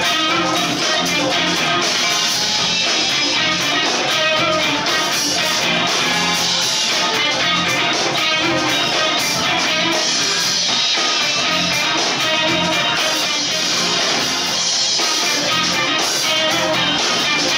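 Live rock band playing: electric guitars, bass guitar and drum kit, loud and steady.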